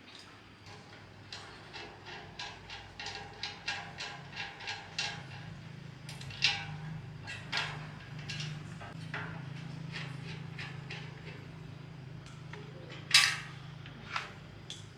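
Metal taps and clinks from hand work on machine parts: a quick series of light taps about two or three a second, then scattered knocks and one louder clank near the end, over a low steady hum.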